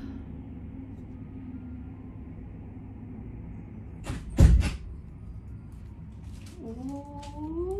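Road traffic heard through a closed window: a steady low hum, a single loud thump about halfway through, and near the end a vehicle engine rising in pitch.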